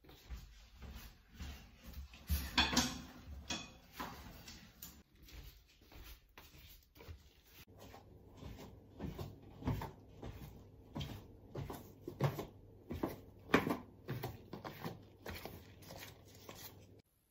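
Footsteps and small knocks and thuds of a person moving about a small room and on a wooden staircase, irregular and fairly quiet, with a couple of louder knocks.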